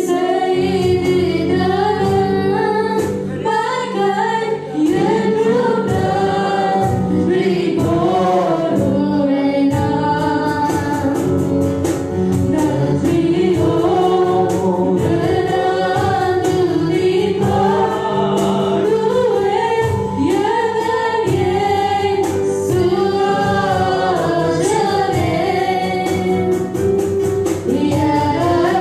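A woman leads a Tamil Christian worship song with a second woman singing backing vocals, over live instrumental accompaniment that includes an acoustic guitar. The song runs steadily, with a regular rhythmic beat underneath.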